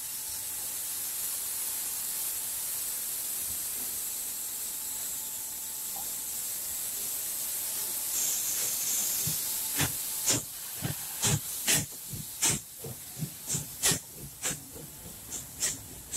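Class 58 (Prussian G 12) steam locomotive hissing steadily as it lets off steam, then moving off, with a series of sharp knocks, roughly two a second, from about ten seconds in as it rolls past.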